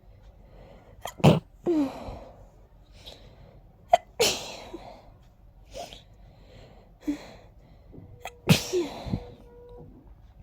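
A person sneezing in a fit while very stuffy and congested: three strong sneezes a few seconds apart, about a second in, around four seconds and past eight seconds, with quieter breaths between them.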